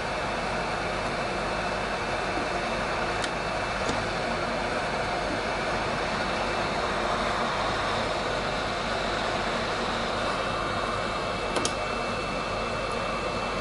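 Heat gun running steadily, its fan blowing hot air onto a router's circuit board to melt the solder holding a faulty reset button. A couple of light clicks come through, one about three seconds in and one near the end.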